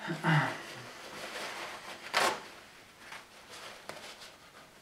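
Paper towel rustling and being crumpled in gloved hands, with one short, louder rasp about two seconds in and lighter crinkles after it.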